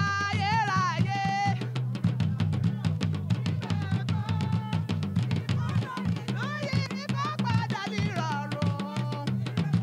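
Live gospel music: women's voices singing over fast, dense drumming and a steady bass line, heard through a PA. The singing comes in at the start and again from about six seconds in, with the drumming running on underneath.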